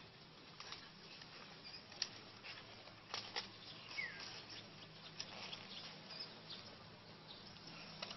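Faint outdoor background hiss with a few scattered sharp clicks and one short falling chirp about four seconds in.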